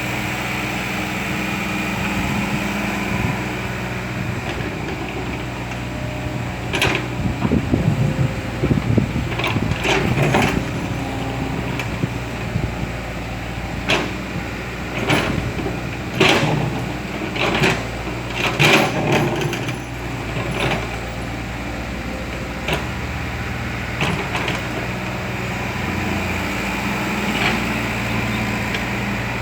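Kobelco Yutani excavator engine running steadily, with a string of knocks and clanks from the bucket and arm working soil, bunched in the middle.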